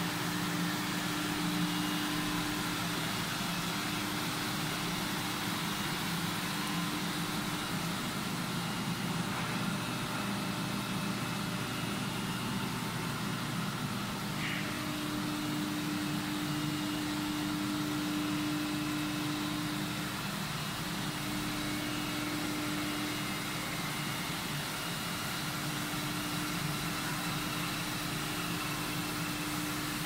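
Honeycomb desiccant dehumidifying dryer running on test: a steady machine whir and hum, with a low tone that swells and fades through the second half.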